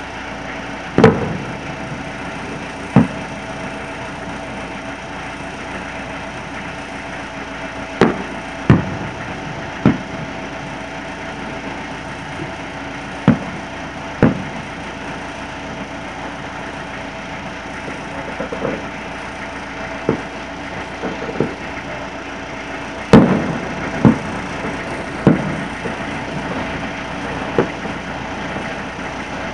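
Distant aerial fireworks shells bursting: about a dozen sharp bangs at irregular intervals, each trailing a short echo, with the loudest cluster near the end, over a steady background hum.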